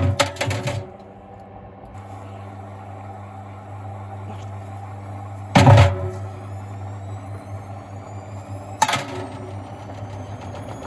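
Gorenje SensoCare washing machine running with heavy bricks in the drum. The bricks slam against the drum loudly at the start, again about five and a half seconds in and near the end, over a steady motor hum. A rising motor whine comes in over the last few seconds as the drum speeds up.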